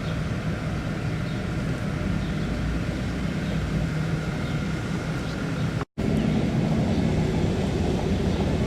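Steady rumble of a running engine, broken by a brief silent gap about six seconds in, then carrying on.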